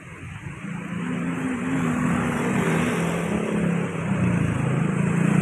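A road vehicle's engine running close by, a low wavering hum that comes in about a second in and grows louder toward the end, over general traffic hiss.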